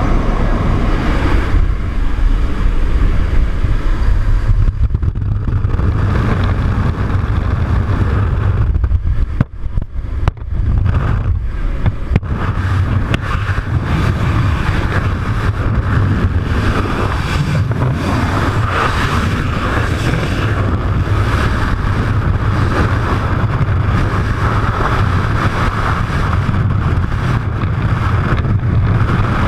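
Jump plane's engine and slipstream noise through the open door. From about ten seconds in, after a few brief dropouts, it gives way to the steady rush of freefall wind blasting the camera's microphone.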